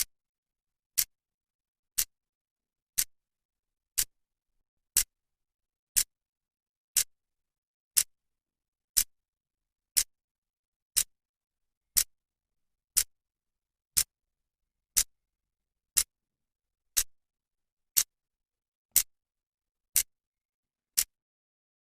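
Clock second hand ticking, one sharp click each second, with silence between the ticks.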